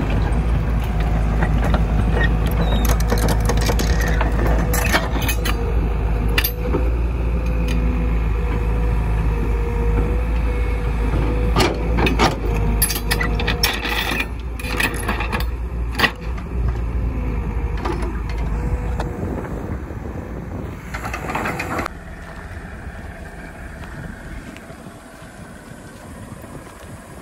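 Caterpillar crawler excavator's diesel engine running with a deep rumble and a steady whine, with scattered metal clanks as the machine moves on its steel tracks. About 19 seconds in the deep rumble stops and the sound drops much lower.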